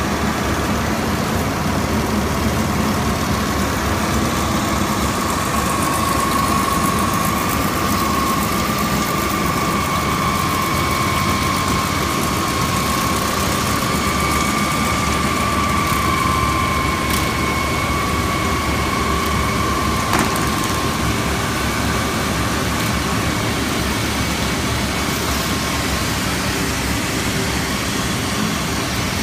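Textile fiber opening machine running: its electric motors, belt drives and spinning opener rollers tearing waste fabric into fiber make a loud, steady mechanical noise. A steady high whine sits over it for a long stretch in the middle, and there is one sharp click about two-thirds of the way through.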